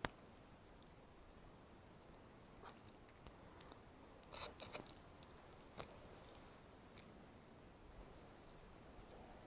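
Faint, steady high-pitched insect chorus, with a second higher trill coming and going in the second half and a few soft clicks of handling.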